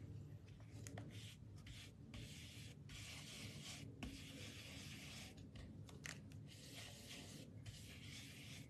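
Blending brush scrubbing ink through a stencil onto cardstock: a faint, scratchy rubbing in many short strokes with brief breaks between them.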